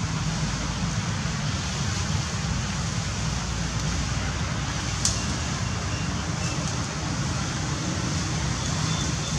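Steady outdoor background noise with a low rumble, and one sharp click about five seconds in.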